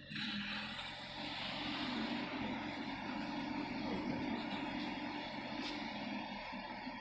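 A car driving, with a steady mix of engine hum and road noise.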